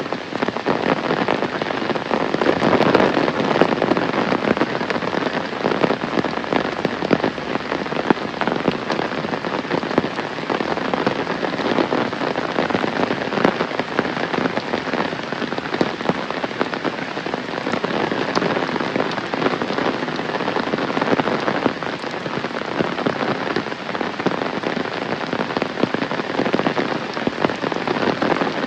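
Heavy rain falling steadily, a dense patter of countless drops hitting surfaces.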